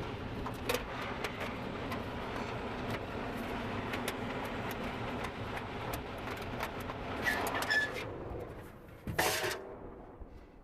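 Steady rushing noise of the air handler's indoor blower running, with scattered clicks and knocks of handling. A louder knock comes about nine seconds in, and the noise then fades away.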